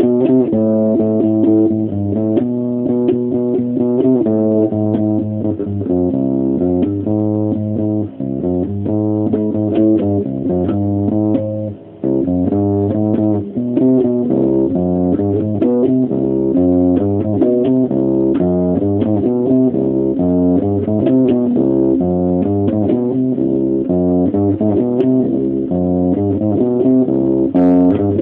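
Electric bass guitar played solo, an improvised riff of plucked notes that changes pitch quickly and runs on with a couple of short breaks.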